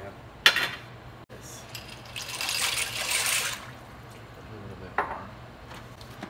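Dry penne pasta being handled and dropped into a pan of cream sauce: a sharp click about half a second in, then a rustling patter lasting about a second and a half, and another click near the end.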